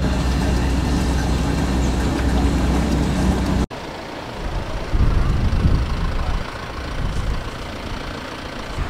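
Steady low drone of a vehicle engine on a slow drive, cutting off abruptly about a third of the way in. It is followed by low, uneven rumbling gusts of wind on the microphone.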